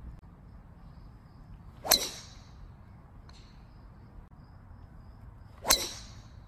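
Golf club striking a ball twice, about four seconds apart, each a sharp strike followed by a brief swish.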